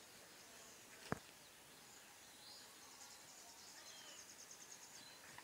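Near silence: faint outdoor background with faint high chirping, broken by one sharp click about a second in.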